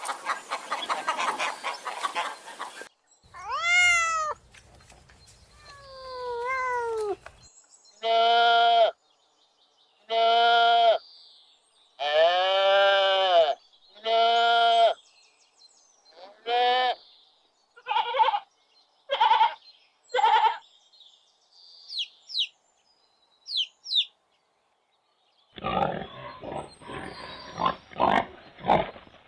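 Goats bleating: a series of long, pitched bleats, followed by shorter, quicker calls. Other animal calls come at the start and near the end.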